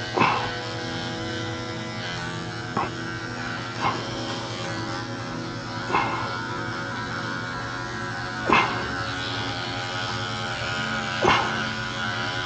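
Electric dog-grooming clippers running with a steady buzz while clipping a dog's belly fur. Six short, sharp dog barks are spread through it.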